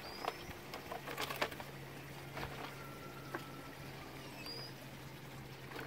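Light scattered taps and clicks, mostly in the first couple of seconds, over a low steady hum, with two brief high chirps.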